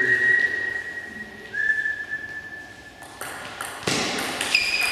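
A long, high, steady whistle held for about three seconds with a short break, drifting slightly lower in pitch. From about three seconds in, a table tennis ball clicks sharply off bat and table as a rally gets under way.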